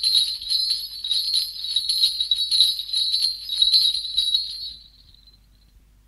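Sleigh bells shaken in a steady rhythm, several jingling strokes a second, then dying away about five seconds in.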